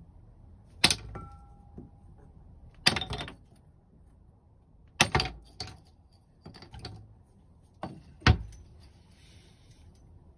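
Hard objects being handled and set down: a handful of sharp knocks and clatters a second or two apart, the first with a brief metallic ring, the loudest near the end.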